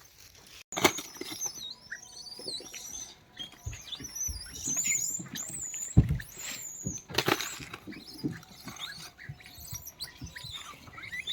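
Monkeys giving many short, high-pitched squeaks and squeals that rise and fall, with a few sharp knocks and scattered thumps among them.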